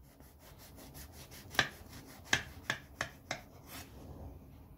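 A knife sawing through the baked crust of a cottage-cheese pie: a soft rasping, with about six sharp scratchy strokes in the second half.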